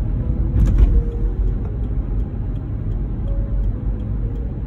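Car cabin driving noise: a steady low rumble of engine and tyres on the road, with a brief louder knock a little over half a second in and faint regular ticking.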